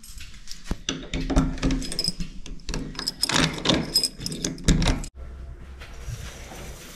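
A dense clatter of clicks, knocks and rattles, like objects being handled, for about five seconds. It cuts off abruptly and gives way to a steady low rumble.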